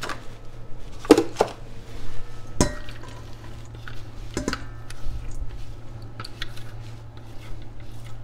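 A plastic food-processor bowl knocking and clinking against a metal stock pot as finely chopped vegetables and bacon are tipped and scraped into it: three sharp knocks in the first half, then smaller ticks and scrapes. A steady low hum runs underneath.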